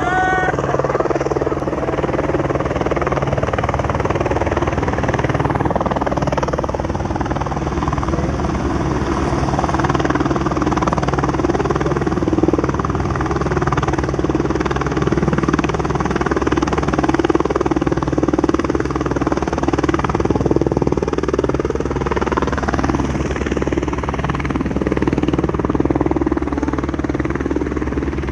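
Police helicopter running close by: a steady rotor beat under a constant engine drone, unchanged throughout.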